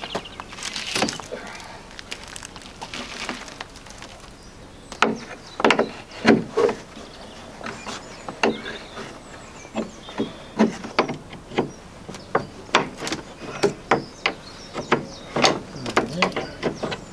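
Irregular knocks and clanks of a Land Rover Series 3 door and its hinges being worked loose by hand. The sharp knocks start about five seconds in and come roughly once or twice a second.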